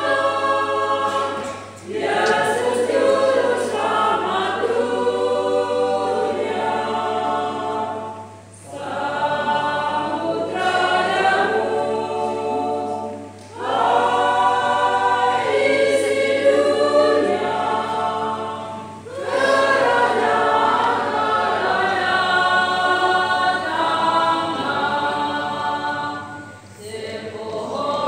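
A small church choir, mostly women, singing a hymn together, the phrases broken by short breathing pauses about every six seconds.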